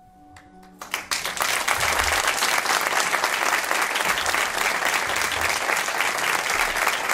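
An audience applauding, the clapping starting about a second in as a few soft notes of music die away, then holding dense and steady.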